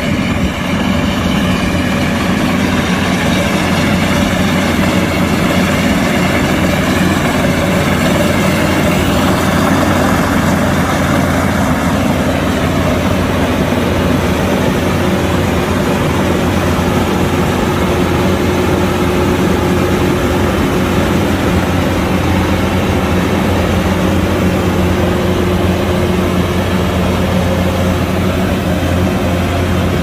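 Kubota combine harvester's diesel engine and machinery running steadily at working speed, a continuous loud drone with layered mechanical whine.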